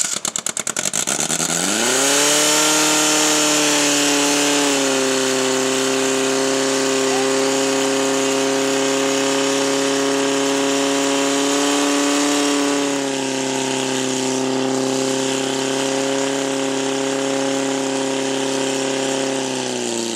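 Portable fire pump's engine revving up from idle to full throttle over about two seconds, then running hard at high, steady revs while it pumps water through the attack hoses. The pitch steps down slightly about five seconds in and again about thirteen seconds in, and drops away as the engine is throttled back near the end.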